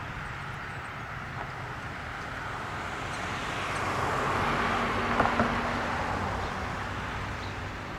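A car passing on the street, its engine and tyre noise swelling to a peak about five seconds in and then fading.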